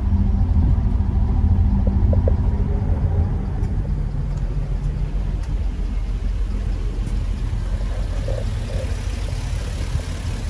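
The 2004 Chevrolet SSR's 5.3-litre V8 idling steadily with a low rumble. It is a little louder in the first few seconds.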